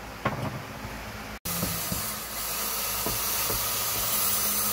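Cordless right-angle drill running steadily, backing out a small Robertson screw from the refrigerator's door trim. It starts about a second and a half in, after a short knock.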